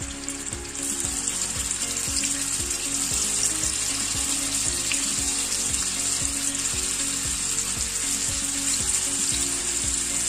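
Marinated chicken pieces sizzling as they fry in hot oil in a shallow nonstick pan, the sizzle growing louder about a second in as more pieces go into the oil. Soft background music with a steady beat plays underneath.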